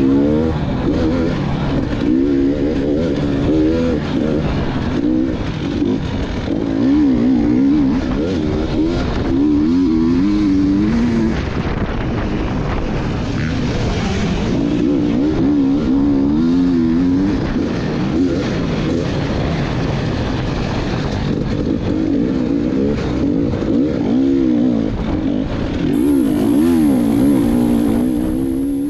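Two-stroke enduro dirt bike engine revving up and falling back over and over as it is ridden through the course, over a steady rushing noise.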